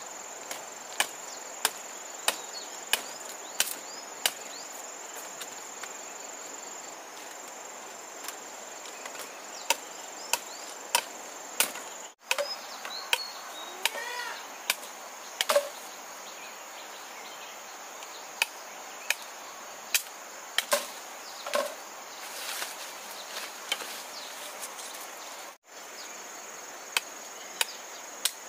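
A knife chopping sugarcane stalks, with sharp hacks at uneven intervals, about one a second at first, over a steady high-pitched insect drone.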